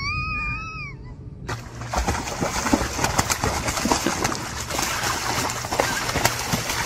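Two ducks fighting in shallow pond water, with splashing and a fast irregular spatter of wings and feet hitting the water. In the first second a high, wavering call trails off before the splashing begins.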